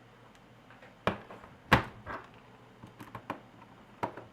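A few sharp plastic clicks and knocks from the laptop being handled, the loudest a little under two seconds in.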